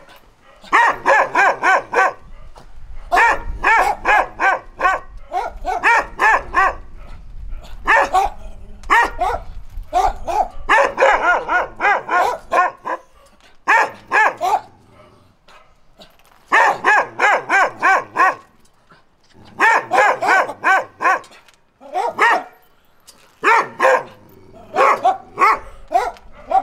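Dog barking in rapid runs of several sharp barks, with short pauses between the runs.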